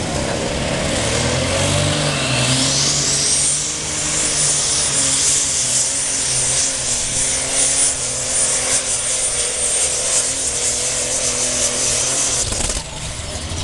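Super Stock pulling tractor's turbocharged diesel engine running at full power, hauling the weight sled. A high turbo whine rises steeply about three seconds in and holds. The engine sound drops off sharply near the end, as the pull ends.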